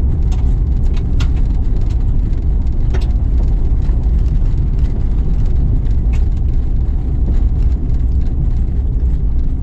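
Steady low road and engine rumble inside a moving car's cabin, with scattered light clicks and knocks.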